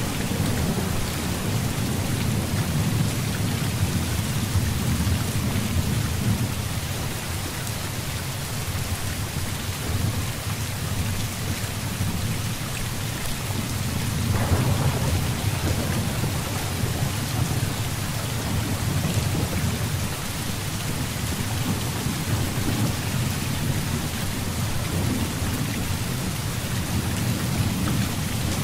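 Heavy rain falling steadily under a continuous low rumble of thunder, with a sharper thunderclap about halfway through.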